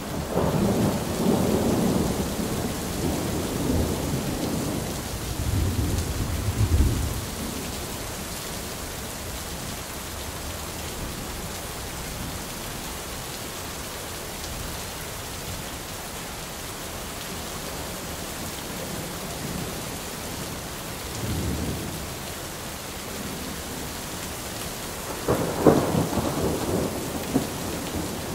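Steady rain hissing with rolls of thunder: a long low rumble over the first seven seconds or so, a short one about three-quarters of the way through, and a stronger one near the end.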